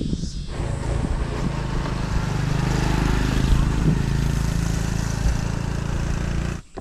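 A motor vehicle's engine running steadily with road and wind noise. It swells over the first second or two, then holds steady, and cuts off suddenly near the end.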